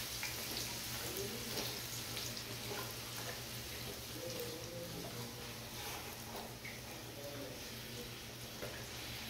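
Hot oil sizzling and crackling steadily as a puri deep-fries in a small pan.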